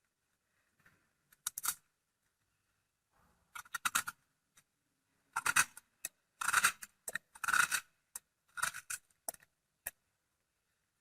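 Knife cutting fruit into small cubes: irregular clusters of short taps and scrapes.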